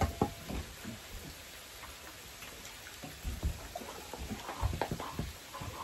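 Meat sizzling on a tabletop electric grill plate, a steady hiss, with occasional clicks and knocks of chopsticks, bowls and glasses.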